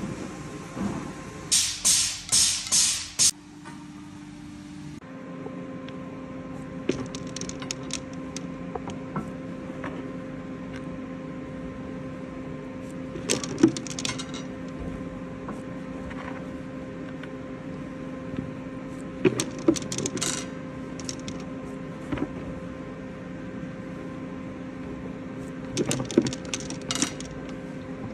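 Steel balls of an excavator swing bearing clicking and clinking as they are fed one by one through the loading hole into the raceway, in several clusters of sharp metallic clicks. Five short hissing bursts come near the start, over a steady hum.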